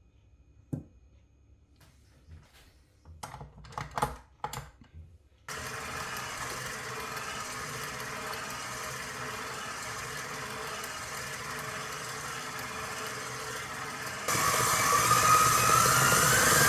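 A few knocks and clicks, then an electric mixer starts whisking egg whites for meringue at a steady low speed. About 14 seconds in it is switched to a higher speed and gets louder, with a rising whine.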